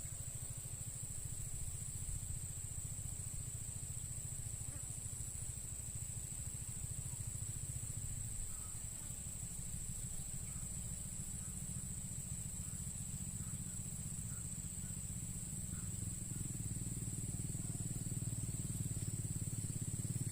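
Steady high-pitched insect chorus, with a low rumble underneath that grows louder about two-thirds of the way through.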